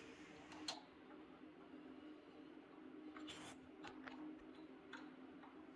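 Faint, scattered small clicks of pliers and metal lever parts being handled while a motorcycle hand lever's pivot pin is worked loose, over a faint steady hum.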